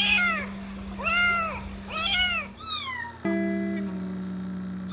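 A young kitten meowing: three high, arching meows about a second apart, then a shorter meow falling in pitch, over background music.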